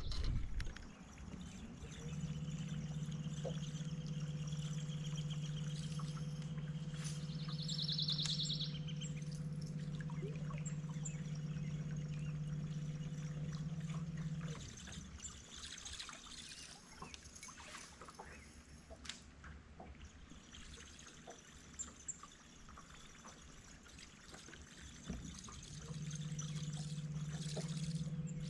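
Bow-mounted electric trolling motor humming steadily at one low pitch, cutting out about halfway and switching back on near the end. Water trickles and laps against the boat's hull.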